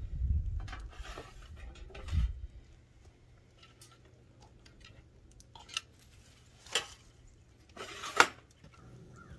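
Handling noise of a wood-framed wire-mesh crate as a hen is put in and the lid is shut and fastened: dull thumps at first, then a few sharp knocks and clinks, the loudest near the end.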